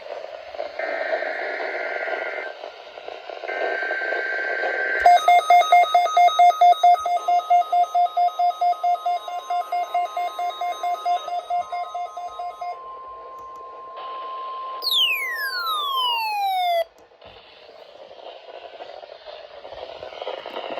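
NOAA Weather Radio alert received on several weather radios over static: two short bursts of warbling SAME data tones, then a radio's alarm beeping about two and a half times a second while the steady 1050 Hz warning alarm tone sounds. The tone ends in a steep falling sweep, then the static returns.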